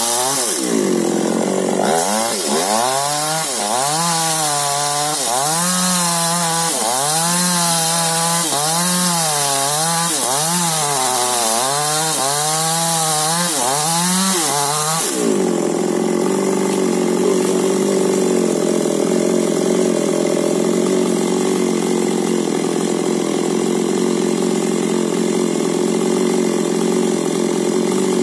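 Two-stroke chainsaw engine revving up and down about once a second, then settling about halfway through into a steady high-speed run.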